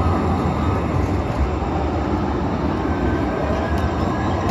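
TriMet MAX Siemens SD660 light rail cars passing close by, a steady loud rumble of steel wheels running on street track.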